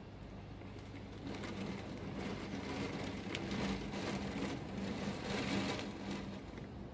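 Torrential thunderstorm rain pouring down, swelling louder from about a second and a half in and easing slightly near the end.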